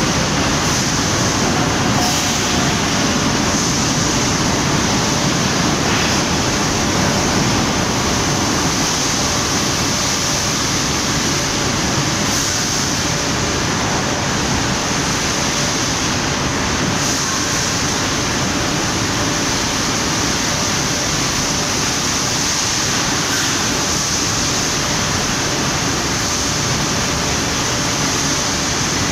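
Steady, loud machinery din of a 3-high roughing mill in a hot rolling mill, running while a red-hot steel billet passes along the roller table, with a faint steady hum underneath and no distinct impacts.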